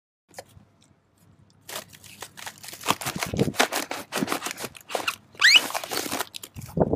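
Battery pack being wrenched out of a fire-warped plastic crate: plastic crackling, creaking and scraping, with a short rising squeak about five seconds in and a few dull knocks near the end.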